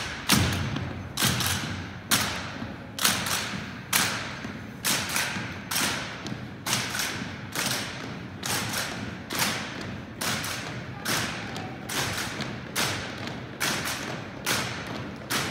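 Marching footsteps of a drill team in step on a hardwood gym floor. There is a sharp, echoing step a little under once a second in a steady cadence.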